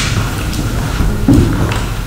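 A dull thump about a second in, over a low steady hum.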